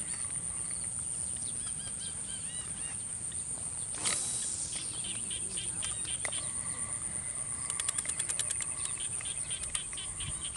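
A steady high insect trill with repeated short bird chirps over it. A brief hissing burst comes about four seconds in, and a fast rattle of clicks about eight seconds in.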